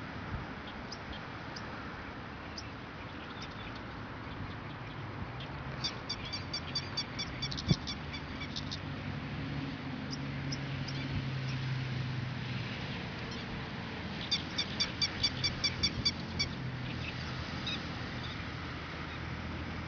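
Two bursts of rapid, high chirping calls from a small animal, about six calls a second, each burst lasting two to three seconds, with scattered single chirps before them. A low steady hum swells in the middle.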